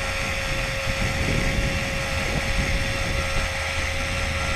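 Cordless electric caulking gun running steadily as it pushes out a bead of urethane windshield adhesive, a steady motor whine, with wind rumbling on the microphone.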